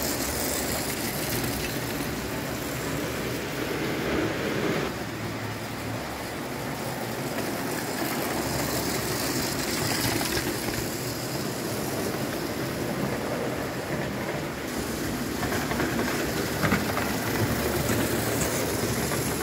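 1938 JEP O-scale electric tinplate model railcar (Autorail Nord) running on metal track. Its electric motor whirrs steadily and its wheels rattle along the rails, with a few sharper clicks in the last few seconds.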